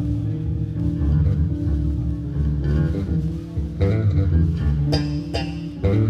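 Electric blues band playing a sound check through the PA, with a prominent electric bass line under electric guitar. There are a few sharp hits near the end.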